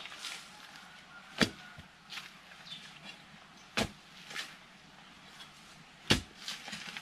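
Three sharp knocks, about two and a half seconds apart, of a crowbar striking old woody plant stumps stuck in a planter, with small clicks and leaf rustling between.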